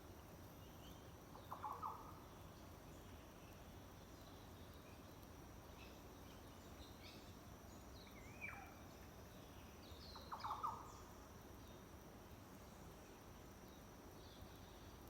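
Birds calling faintly over a steady high insect drone: a quick burst of short notes about two seconds in, a single falling call a little past the middle, then another burst of notes, with scattered faint high chirps.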